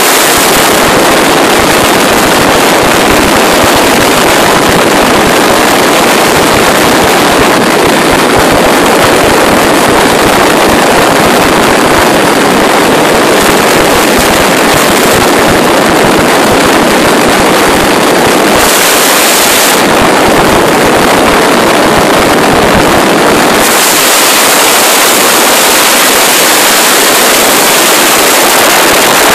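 Oryx helicopter in flight, heard from its open door: loud, steady noise of the turbine engines and rotor mixed with rushing air over the microphone.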